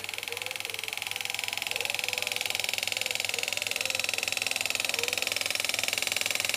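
Pneumatic engraving handpiece (air-driven graver) hammering a graver in a rapid, even buzz as it cuts a letter into the inside of a ring. It grows a little louder over the first couple of seconds.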